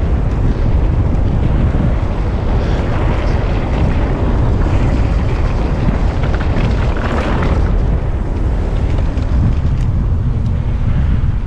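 Wind buffeting the microphone of a moving mountain bike rider: a loud, steady low rumble with the noise of the ride mixed in.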